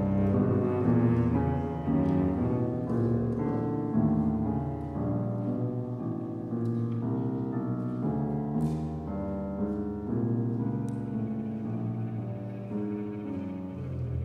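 A chamber ensemble of bowed strings (violin, viola, cello, double bass) and piano plays a slow, sustained passage of contemporary classical music.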